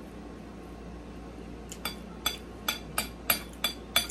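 Metal fork clinking against a plate: seven quick, ringing taps about three a second, starting about two seconds in.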